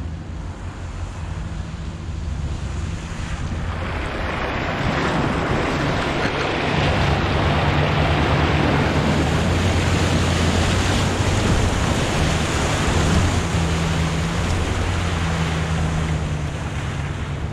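A 3/4-ton Chevy pickup fording a shallow stream under throttle: the engine hums low beneath a steady rush of water thrown up by the tires, building a few seconds in and loudest through the middle of the crossing.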